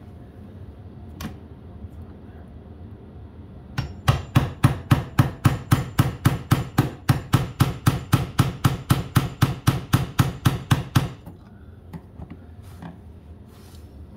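Rapid, even hammer blows on a steel chisel, about four a second for some seven seconds, chipping away a plastic shift selector rusted and seized onto its shifter. A single tap comes before the run, and a few light taps come near the end.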